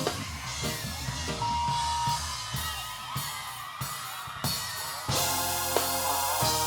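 Instrumental backing music: a drum kit and bass line, joined by steady held chords about five seconds in.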